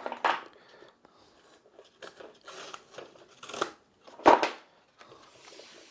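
Cardboard packaging being cut and torn open, with a few short rustling, crackling snips and one louder sharp snap about four seconds in.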